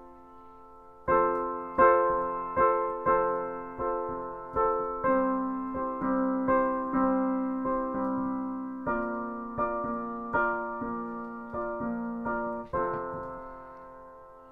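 Solo piano playing an instrumental interlude: after a brief lull, chords and single notes are struck about once a second, each left ringing.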